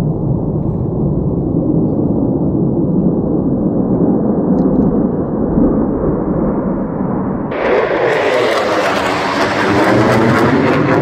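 F-15 Eagle fighter jet passing low: a low jet rumble builds, then about seven and a half seconds in the full roar of its twin engines arrives suddenly, with a sweeping, phasing whoosh as it goes overhead.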